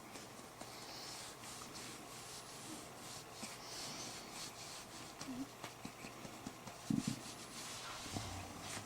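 Faint rustling and handling noises around a baby being held, with scattered small taps. Two brief low sounds stand out: a tiny squeak about five seconds in and a short low grunt about seven seconds in.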